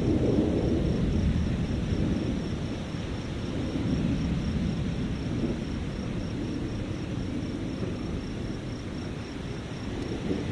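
Thunder rumbling, loudest near the start with a second swell a few seconds in, then slowly fading.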